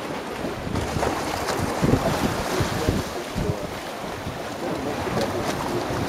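Small sea waves washing and splashing over a shallow rocky shore, with wind buffeting the microphone in irregular gusts.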